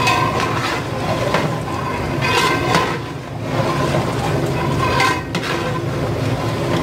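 Long metal ladle stirring chicken curry in a large aluminium degh, scraping and knocking against the pot's sides several times, over a steady low rumble.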